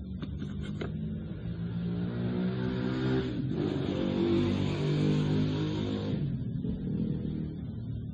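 A motor vehicle's engine rises in pitch and passes, with a short break about three and a half seconds in, like a gear change, then fades near the end.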